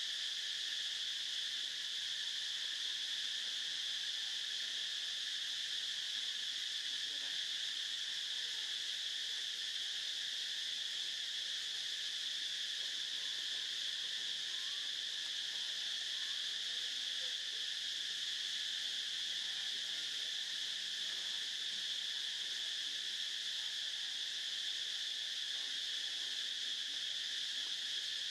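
A chorus of insects makes a steady, unbroken high-pitched buzz.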